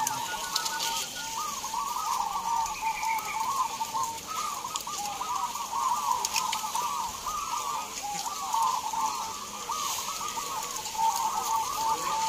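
A chorus of many caged zebra doves (perkutut) cooing at once, their quick, arched coos overlapping without a break.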